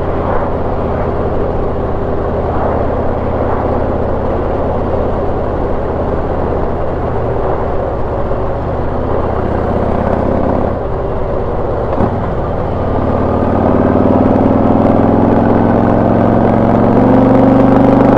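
Harley-Davidson V-twin running through a Rinehart exhaust fitted with FuelMoto tunable inserts, heard from the rider's seat. It cruises steadily, then about two-thirds of the way in a fifth-gear roll-on begins and the engine note climbs steadily in pitch and loudness.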